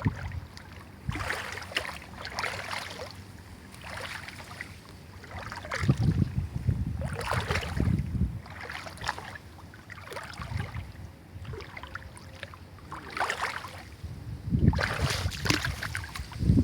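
Wind buffeting the microphone in gusts, with irregular swishing noises every second or two; the strongest gusts come about six seconds in and near the end.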